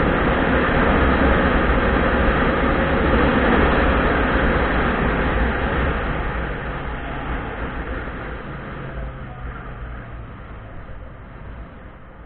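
Wind rush and motorcycle riding noise on a helmet-mounted camera at road speed, a steady low-heavy rumble. About halfway through it dies away steadily as the bike slows toward an intersection, leaving a faint low engine hum.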